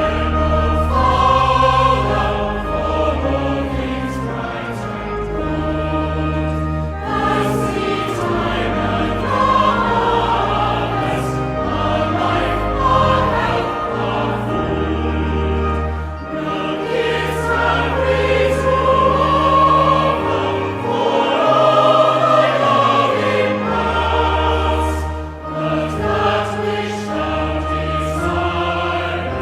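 Choir singing a hymn, with low sustained notes accompanying the voices.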